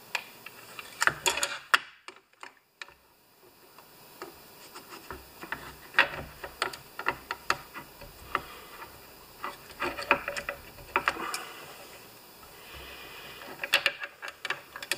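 Irregular small clicks and light knocks, with brief rubbing, as a chainsaw carburetor and its intake parts are handled and fitted into the saw's housing.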